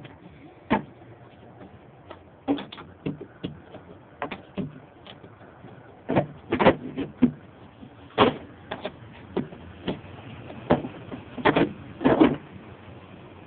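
Irregular metallic clicks and knocks of a socket wrench being fitted and worked on the throttle body's mounting bolts, coming more often and in quick clusters in the second half.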